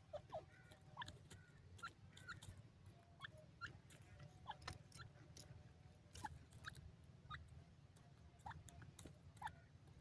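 Faint sounds of a grey francolin foraging: scattered pecking clicks in dry soil and soft, short chirps, over a low steady hum.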